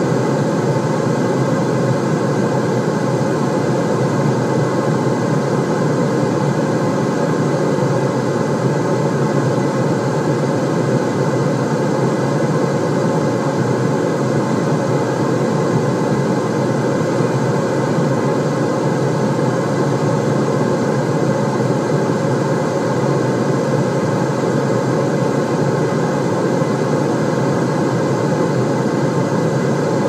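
Steady white noise: an even, unchanging rushing hiss, heaviest in the low-middle range and duller higher up.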